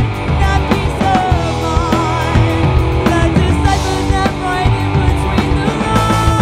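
Rock band playing live: electric guitars and drums under a woman's singing voice.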